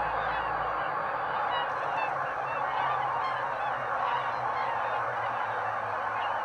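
A large mixed flock of swans and geese in flight, calling all at once in a dense, unbroken chorus of honking.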